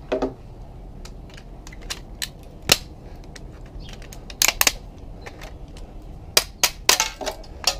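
Parts being pried and snapped off a CRT TV's deflection yoke: a series of sharp clicks and snaps, the loudest a little under three seconds in and several more close together near the end.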